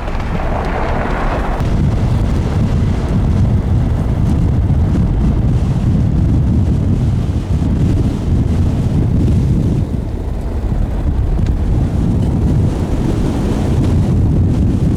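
Strong wind buffeting the microphone: a loud, wavering low rumble.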